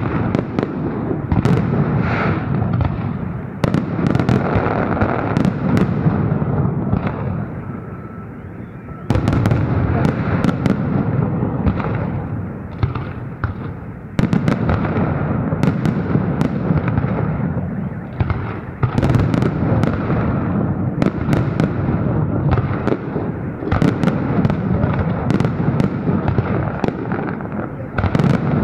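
Festive fireworks salute: volleys of shells bursting in quick succession, sharp bangs over a continuous rumble and crackle, easing off briefly about a third of the way in and again near the middle before picking up again.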